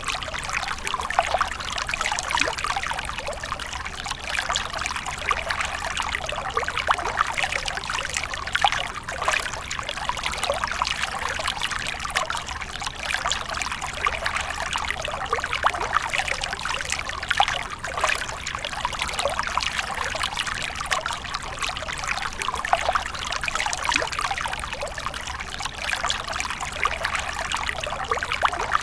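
Running water splashing and trickling steadily, a continuous dense patter of small splashes with no pauses.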